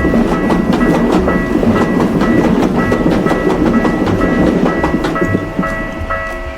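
A passing train: wheels rumble and clack over the rail joints, fading out near the end, over background music.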